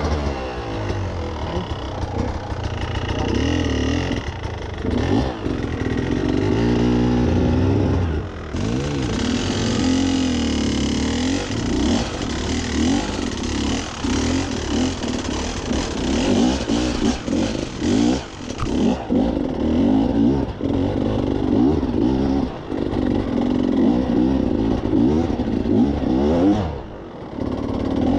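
Beta enduro motorcycle engine revving up and down over and over under load on a steep, rocky climb, with short knocks and clatter mixed in.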